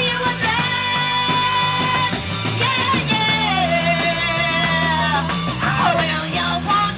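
Live rock band playing: a woman singing over electric guitar and drums. The music carries long held notes, one sliding down in pitch about three seconds in.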